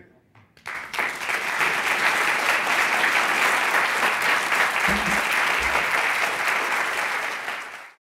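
Audience applauding: dense, steady clapping that builds up within the first second and cuts off abruptly near the end, with two brief low thuds about five seconds in.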